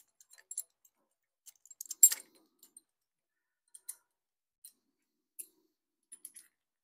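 Scattered small metal clicks and clinks of steel rocker arms, fulcrums and bolts being handled and set in place on a Ford 302 V8 cylinder head, the loudest clink about two seconds in.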